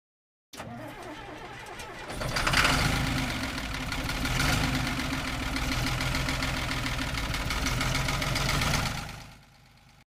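An engine starting and then running steadily, louder from about two seconds in, fading out about a second before the end.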